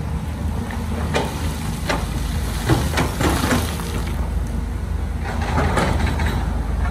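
Heavy construction machine engine running steadily, with a run of irregular knocks and scrapes in the middle from material or metal parts being moved.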